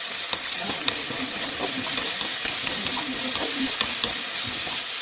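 Food sizzling in an oiled frying pan as it is stir-fried, with a steady hiss and light scraping and tapping of a spatula against the pan.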